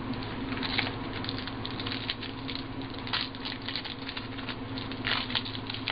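Foil trading-card pack wrappers crinkling and cards rustling as they are handled, a dense, irregular run of small crackles.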